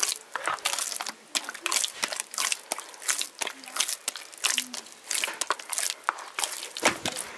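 Hands kneading flour and water into bread dough in a plastic basin: a run of irregular short strokes of dough and flour being pressed and worked, several each second.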